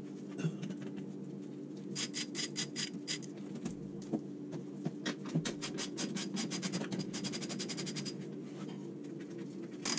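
Ratchet wrench with a 10 mm socket clicking in quick, even runs as the maintenance-pan screws are turned. There is a short run about two seconds in and a longer, faster run from about halfway to near the end, over a steady low hum.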